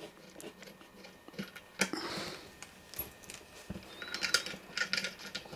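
Small metallic clicks and taps of a wrench and loose hardware as a ground strap's bolt is undone, with one sharper knock about two seconds in and quicker clicking from about four seconds.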